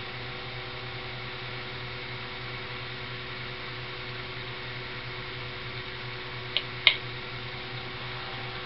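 Steady fan-like hiss and low hum of indoor room noise, with two sharp clicks close together about two-thirds of the way in.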